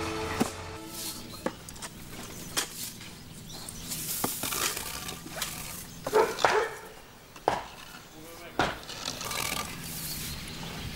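Wooden pole scraping and knocking inside a wood-fired brick bread oven as the embers are raked: scattered sharp knocks and short scrapes, loudest a little past the middle.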